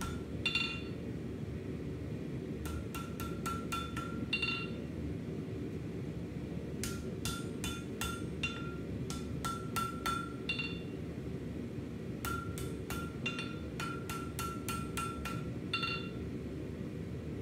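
Hand hammer striking red-hot steel on an anvil, each blow with a short metallic ring, in three runs of eight to eleven blows at about three a second with short pauses between. The smith is rounding off the corners of the knife's square handle section. A steady low rumble runs underneath.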